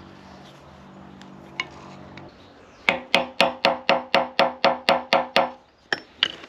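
Hammer driving a steel drift against a rusted retaining collar on the cast-iron bed of a radial drill. About a dozen quick blows, roughly four a second, each with a short metallic ring, are followed by two more taps near the end. They are trying to shift the stuck collar and bevel gear. A faint low hum sits under the first two seconds.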